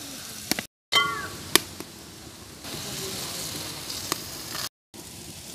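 Parathas frying in oil in an iron kadai, with a metal spatula clicking sharply against the pan a few times. About a second in there is a short, high animal cry.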